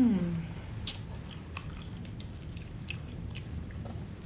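A person biting into and chewing fried chicken close to the microphone, with a few sharp crunchy clicks about a second in and again half a second later. It opens with a brief hummed voice sound.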